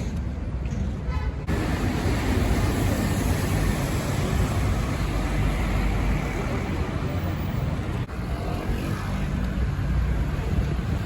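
Downtown city street traffic noise: a steady, dense rumble of vehicles. The sound changes abruptly about a second and a half in.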